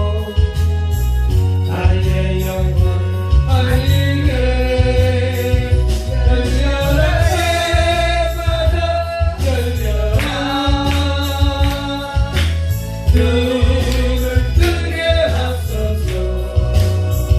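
Gospel worship song: a voice singing a melody over instrumental accompaniment with a steady, heavy bass and percussion.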